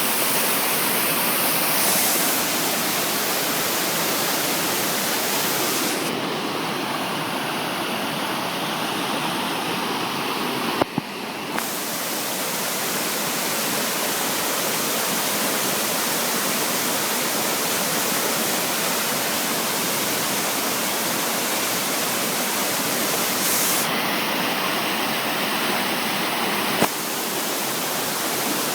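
Waterfall pouring steadily, a dense, even rush of falling water, with a couple of short clicks about 11 seconds in and near the end.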